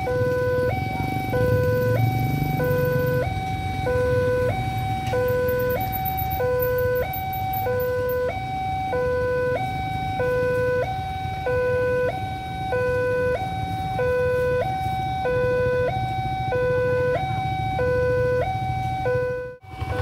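Railway level-crossing warning alarm sounding while the barrier is down: a steady electronic two-tone signal alternating between a higher and a lower tone, a little over a second for each pair, warning of an approaching train. Motorcycle engines idle underneath, and the sound cuts out briefly just before the end.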